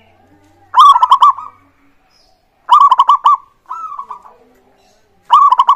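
Zebra dove (perkutut) cooing its song: three loud phrases of quick, rolling coo notes about two seconds apart, with a softer phrase after the second. The song is played as a lure to set other perkutut calling.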